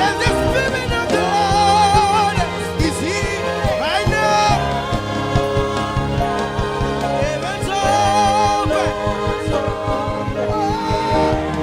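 Gospel worship music: a voice singing held, wavering notes over steady instrumental backing.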